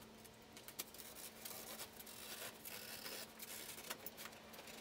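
Faint scraping and rustling of a cardboard template being worked by hand along its edge, with scattered light clicks, over a faint steady hum.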